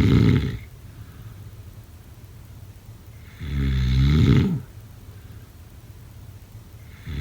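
A sleeping person snoring in slow, regular breaths. A snore fades out at the start, a second buzzing snore about a second long comes near the middle, and a third begins right at the end, with a faint low rumble between them.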